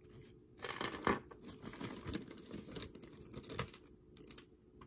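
Plastic bag crinkling and rustling as it is handled, in irregular crackles with small clicks, dying down near the end.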